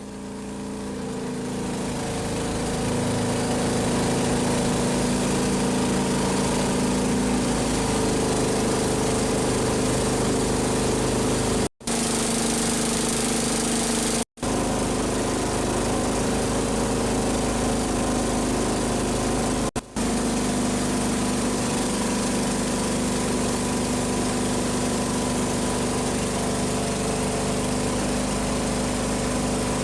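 Longtail boat's engine running steadily at speed, a constant drone over a broad rushing noise. It fades in at the start and cuts out very briefly three times.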